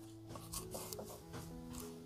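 Soft background music of sustained, slowly changing notes, with a few faint knife taps on a wooden cutting board underneath.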